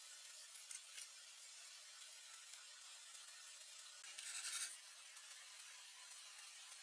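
Faint steady hiss with a few light clicks, then one short rasping scrape about four seconds in.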